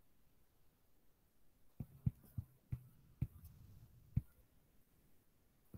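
A stylus tapping on a tablet screen while handwriting: a quick run of light, sharp taps from about two seconds in until just after four seconds, after a near-silent start.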